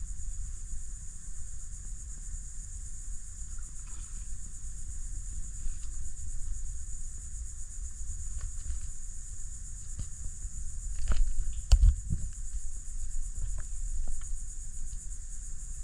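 Steady, high-pitched chorus of insects, cricket-like, over a low rumble, with a few sharp knocks about two-thirds of the way through.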